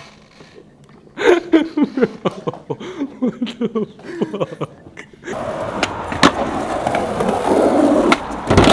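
A young man laughing hard in quick bursts. Then skateboard wheels rolling over a concrete sidewalk, with a few sharp clacks and a loud slam near the end.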